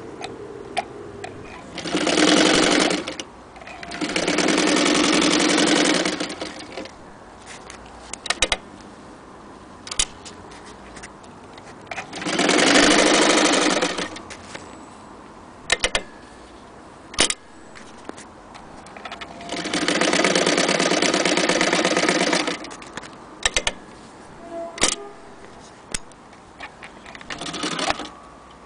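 Vintage electric Frister & Rossmann sewing machine stitching through denim in five short runs of one to three seconds each, stopping and starting. Sharp clicks and knocks fall in the pauses between the runs.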